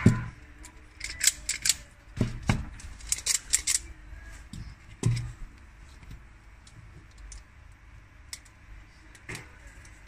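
Plastic-handled automatic wire strippers being picked up, set down and knocked against each other on a hard board: a quick run of clicks and clacks over the first few seconds, then a few scattered ticks.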